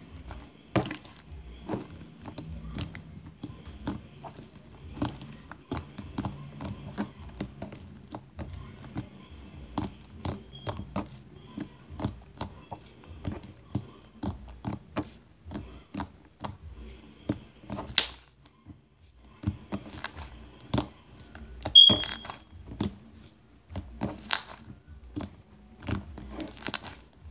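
Hands kneading and pulling wet, sticky slime, making irregular squelching clicks and pops. A short high beep sounds about five seconds before the end.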